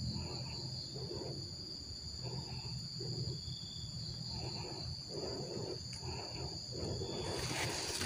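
Steady high-pitched insect chorus, held on a few unchanging tones, over soft irregular lower pulses about once or twice a second.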